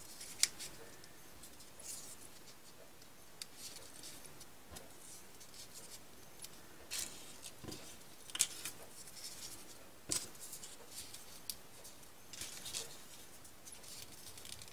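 Faint rustling and crinkling of folded paper origami units being slotted into a ring of modules, with a few short crisp clicks and scrapes scattered through.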